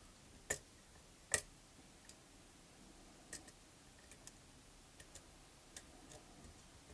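Lock pick working the pins of a pin-tumbler challenge lock, giving faint, sparse clicks. Two sharper clicks come in the first second and a half, then lighter ticks now and then as the pick probes for a pin at the back that is not yet set.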